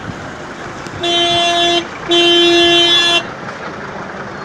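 A vehicle horn honks twice over steady street-traffic noise: a blast of just under a second, then after a short gap a louder one of about a second, each held at one steady pitch.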